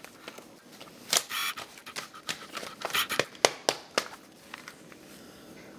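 Handling noise: a run of sharp clicks and knocks with a short scuff, starting about a second in and dying away after about three seconds.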